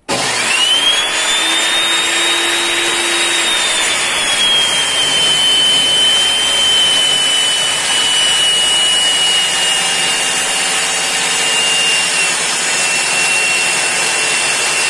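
Bosch GTS 254 table saw switched on: its motor whine sweeps up as the blade spins up, then it runs steadily and loud, the whine drifting slowly a little lower.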